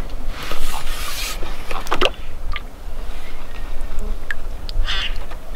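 Wind buffeting the microphone with a steady low rumble. A scratchy rubbing noise lasts about a second near the start, and there are a couple of short bird calls, one about two seconds in and one near the end.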